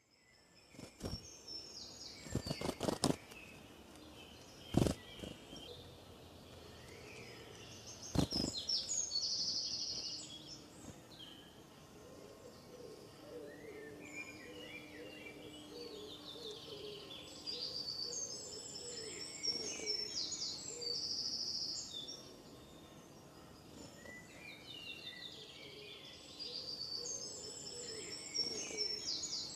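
Songbirds singing in woodland, with short trilled phrases repeating every few seconds. Early on there are a few sharp knocks, the loudest one about five seconds in.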